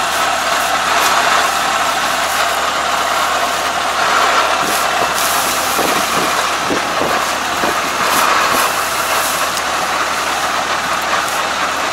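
Kubota ARN460 combine harvester's engine running steadily at idle. Rice straw rustles faintly as it is pulled by hand out of the clogged straw-cutter opening.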